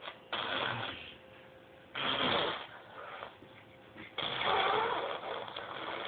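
A toddler blowing raspberries, making mouth farting noises: three buzzing bursts, the last and longest starting about four seconds in.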